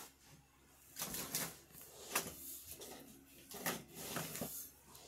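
Handling noise from a cardboard earbud box with a clear plastic window: rustles and clicks in several short bursts, the sharpest about two seconds in.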